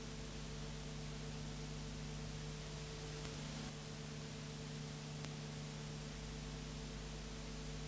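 Steady hiss with a low electrical hum and no other sound: the empty soundtrack of a silent 8mm film transfer.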